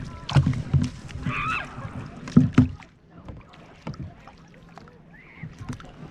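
Knocks and bumps against a kayak hull, loudest about half a second in and again around two and a half seconds, with a couple of short high squeaks.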